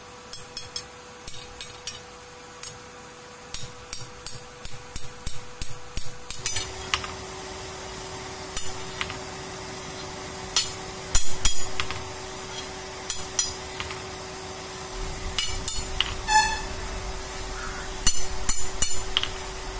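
Hand hammer striking a rebar bar on an iron block anvil, forging its end into a chisel: sharp metallic blows in quick runs of several strikes with short pauses between, the loudest run about halfway through.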